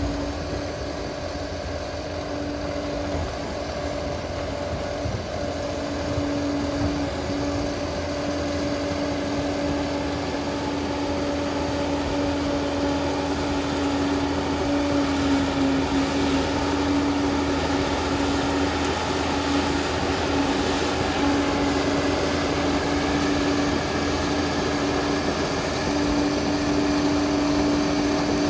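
Liebherr 746 bulldozer running steadily, its diesel engine droning with a steady whine on top, growing slowly louder.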